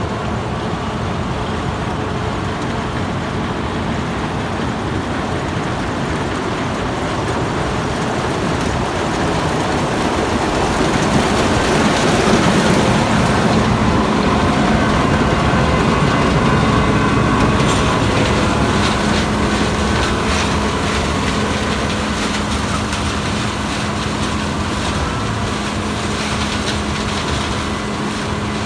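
Farm machinery engines running steadily in a harvest field, with a constant hum that grows louder about ten seconds in.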